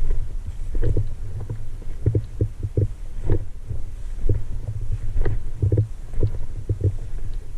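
Low rumbling and irregular dull thumps, about two to three a second, from a body-worn camera jostled by footsteps and gear as the player moves.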